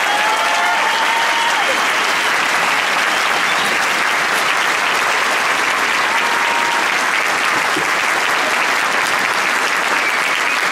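Large crowd applauding steadily, with some cheering in the first two seconds.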